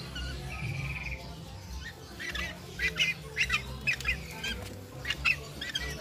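Bird calls: a brief buzzy trill near the start, then from about two seconds in a quick run of short, high, squeaky chirps in clusters.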